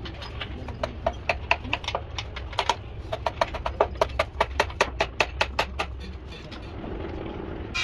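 A rapid series of sharp knocks, about four or five a second, each with a brief ring, over a steady low hum; the knocking starts about a second in and stops about a second before the end.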